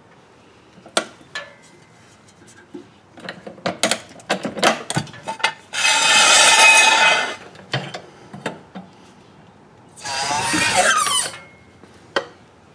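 Steel jack stands being handled and pulled out from under a car: scattered metal clanks and knocks, then two loud scrapes of metal across a concrete floor, about six seconds in and again about ten seconds in.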